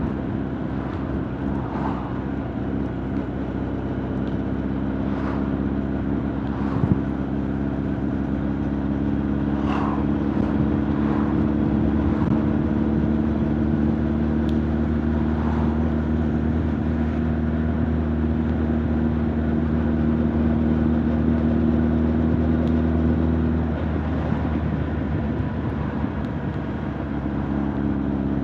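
Honda CB1300 Super Bol d'Or's inline-four engine and exhaust running at a steady pitch while riding. The note grows louder a few seconds in, holds, and drops back near the end. There is one short knock about seven seconds in.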